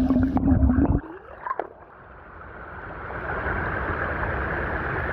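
Stream water heard with the microphone underwater: a muffled low hum with gurgling that cuts off about a second in. After a brief lull, the even rush of a shallow rocky stream and its small weir cascade rises and then holds steady.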